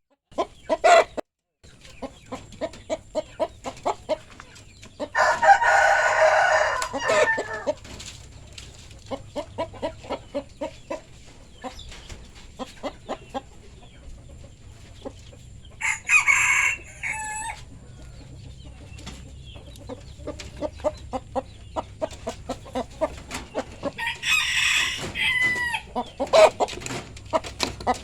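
Kampung chickens clucking in short, repeated calls, with a rooster crowing loudly three times, the longest crow coming about five seconds in.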